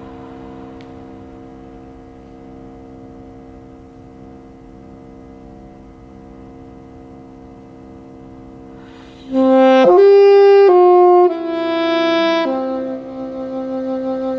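Saxophone and cello duet: a quiet, held low chord sustains for about nine seconds, then the saxophone comes in loud with a short phrase of four stepped notes and settles into a long held note with vibrato.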